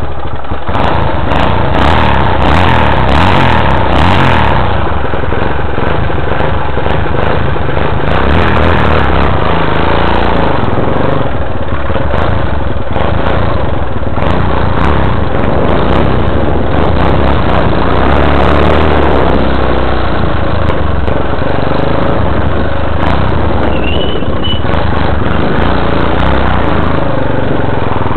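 Honda XL185's single-cylinder four-stroke engine running, with sharper, busier running in the first few seconds. The owner says it smokes constantly once warm and is due for a rebuild with new piston rings.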